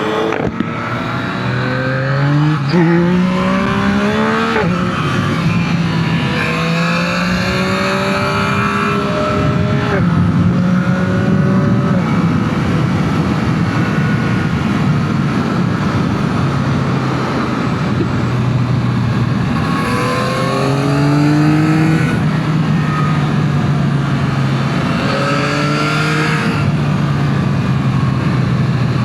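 2025 Yamaha MT-09 SP's 890 cc inline-three engine through its stock exhaust, loud, accelerating hard through a couple of quick upshifts at the start. It then holds a steadier cruise, dropping back a couple of times, and pulls up through the revs again in the second half and near the end.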